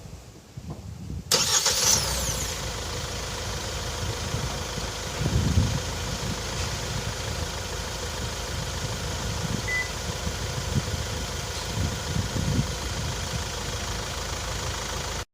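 Kia Sportage (QL) engine starting suddenly a little over a second in, then settling into a steady idle.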